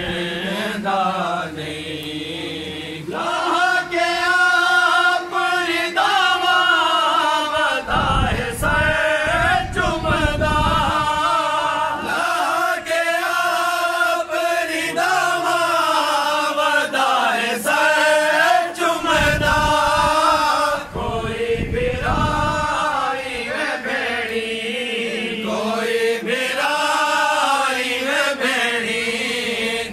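Men's voices chanting a lament together, unaccompanied, in long drawn-out phrases of a second or two each.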